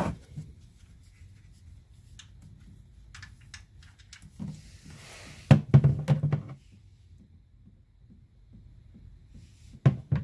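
Scattered knocks and clunks from work under a car during an oil drain: a short knock at the start, a loud cluster of clunks about five and a half to six and a half seconds in, and a sharp knock near the end.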